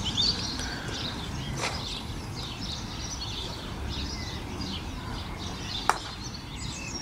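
Birds chirping and singing throughout, with one sharp click about six seconds in as a croquet mallet strikes the ball. A fainter knock sounds about one and a half seconds in.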